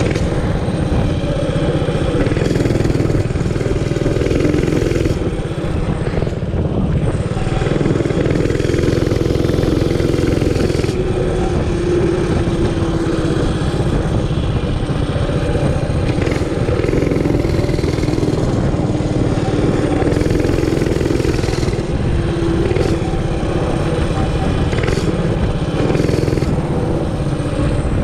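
Realtree RT200 mini bike's 196cc single-cylinder four-stroke engine running at speed under load, through a custom exhaust with a stage 1 kit and the governor spring zip-tied. The engine note holds steady with small rises and falls in pitch as the throttle varies.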